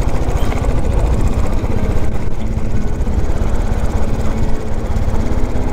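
Royal Enfield Desert Storm's single-cylinder engine and exhaust running steadily under way, a rapid, even low thumping.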